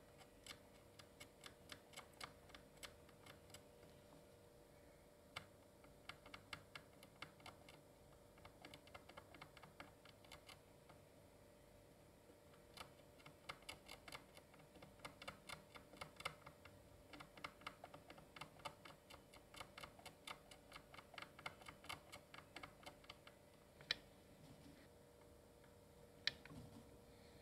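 Soldering iron tip working along the fine-pitch legs of a 3dfx graphics chip, reflowing lifted legs onto their pads: faint, irregular little clicks and crackles in runs, with two louder clicks near the end. A faint steady hum runs underneath.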